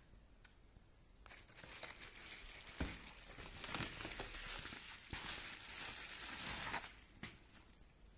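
Clear plastic wrapping crinkling and rustling as hands pull it out of a cardboard box and off a camera body, for about five seconds, with a single knock about three seconds in.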